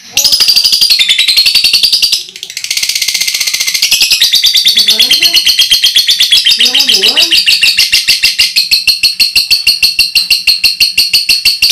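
Lovebird ngekek: a long, loud, unbroken chattering trill of rapid shrill notes, about eight a second, with one brief break about two seconds in.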